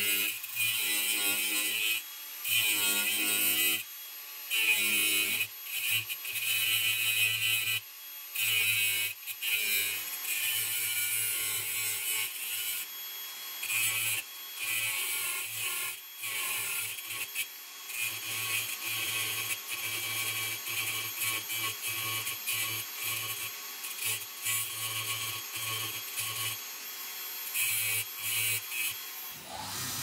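Abrasive cut-off wheel on a power tool grinding through high-carbon steel plate to cut out a knife blade blank: a harsh grinding noise over the tool's motor hum, cutting in and out many times in short passes.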